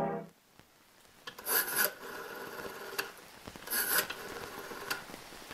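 Rotary telephone being dialed: short rasping whirs of the dial, about two seconds apart, one per digit, over a faint steady hiss.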